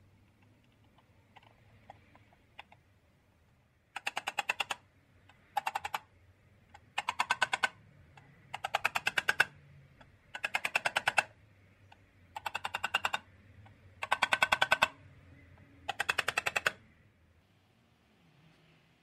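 Rapid ratchet-like mechanical clicking in eight short bursts of under a second each, about a second and a half apart, as the scale's dial is worked on by hand.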